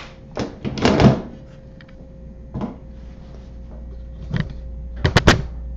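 Knocks and rattles of a homemade Arduino laptop being handled and repositioned, its plastic screen panel on steel brace hinges, ending in a quick cluster of sharp clicks. A faint steady hum runs underneath.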